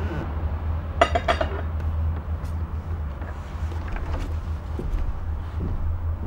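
Fork clinking against a plate several times in quick succession about a second in, with a few faint clicks of cutlery after, over a steady low hum.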